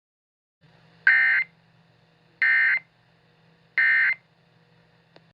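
Three short bursts of Emergency Alert System SAME digital data tones, about 1.3 seconds apart: the end-of-message code closing the warning. A faint low hum runs underneath, and a small click comes near the end.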